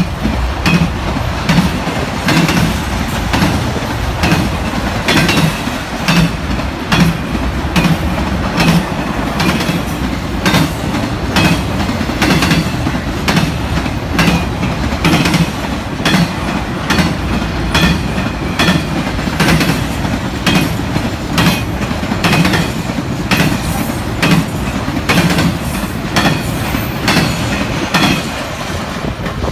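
Intermodal freight train rolling past, flatcars loaded with highway trailers: a steady rumble with rhythmic clickety-clack as the wheels pass over the rail joints.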